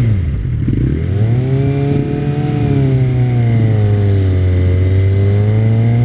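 Motorcycle engine revving. The revs drop sharply about half a second in, climb again about a second in, then hold at a fairly steady low speed with slight rises and falls as the bike pulls away slowly.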